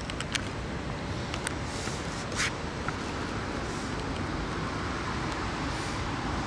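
Steady hum of city traffic, with a few short sharp clicks in the first couple of seconds.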